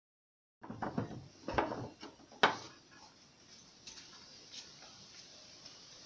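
Several sharp knocks and clatters, the loudest about two and a half seconds in, then a steady faint rushing hiss of wind in the forest.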